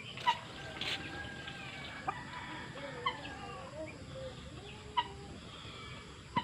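Chickens clucking in short wavering calls, with a few sharp clinks of a plastic scoop against metal feed basins.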